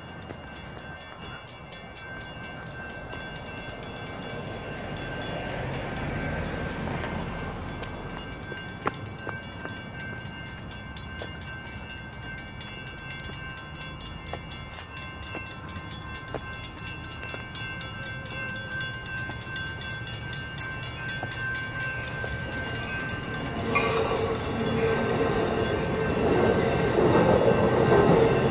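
Railroad grade-crossing bells ringing steadily and continuously, with road traffic passing. From about 24 s in, an Amtrak Surfliner passenger train comes up and runs over the crossing, its rumble growing louder to the end.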